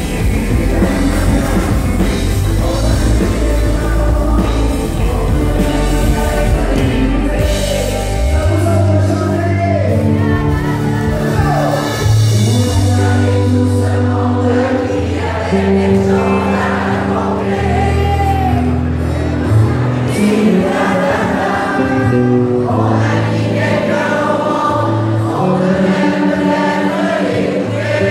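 Live band music with singing, played through the PA: vocals over acoustic and electric guitars. The heavy deep bass drops out about eight seconds in, leaving guitars and voices.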